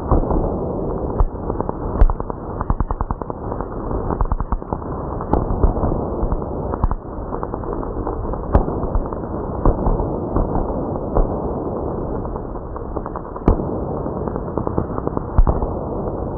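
High-voltage arc discharging continuously off the edge of a foil-on-perspex plate capacitor, described as charged to 400,000 volts: a dense, steady crackle of sparks with a handful of sharper, louder snaps at irregular intervals.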